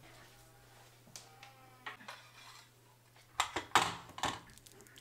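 Plates clinking as they are taken from a kitchen cupboard and set down on the counter: a quick cluster of sharp clatters about three and a half seconds in, after a quiet stretch with a steady low hum.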